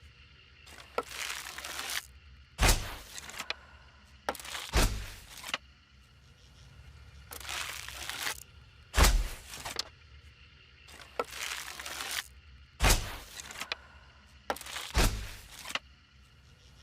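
Bow and arrow being shot again and again: five sharp cracks, each with a low thud, spaced two to four seconds apart, with short rushing swells of noise between them.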